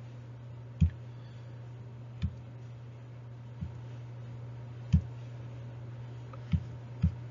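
Stylus tapping on a tablet screen while hand-writing: about six separate sharp clicks spread out, two close together near the end, over a steady low hum.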